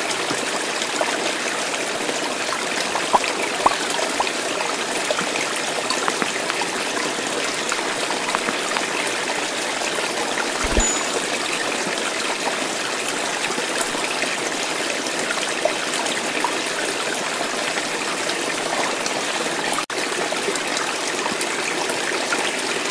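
Steady trickling, babbling water like a small stream, with fine crackling ticks through it and a brief low thump about halfway through.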